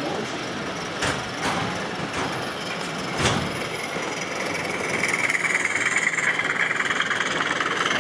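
O gauge model diesel locomotive running on track: a few sharp clicks from the wheels in the first half, then a steady buzzing running sound grows louder about five seconds in.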